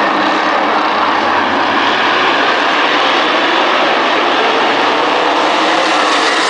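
A field of modified race cars with V8 engines running together on the track at the start of the race, a loud, steady mass of engine noise with no breaks.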